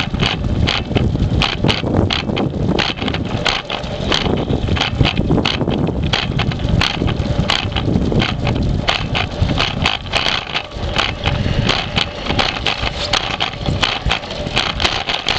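Dog scooter rolling over a concrete path, its vibration carried through the handlebar mount into the camera: a steady rumble with a rapid, irregular rattle of clicks.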